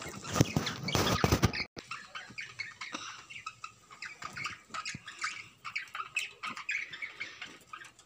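Caged budgerigars chirping and chattering: many short, quick chirps overlapping. The first second and a half is covered by a loud clattering noise.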